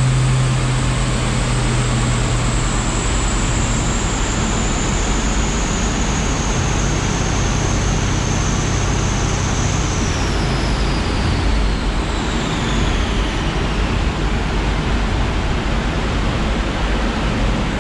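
Car noise: a loud, steady rush with a high whine that slowly falls in pitch, then drops away faster about ten seconds in, and a low hum that fades in the first few seconds.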